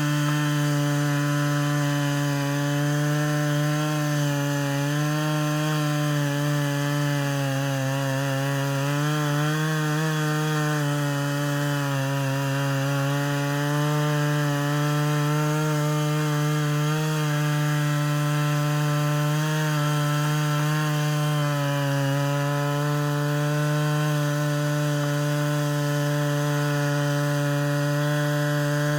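Stihl MS 660 two-stroke chainsaw on an Alaskan chainsaw mill, running steadily at high revs under load while ripping a long cut through Western red cedar with a 36-inch bar and ripping chain. The engine pitch wavers a little now and then as the load shifts.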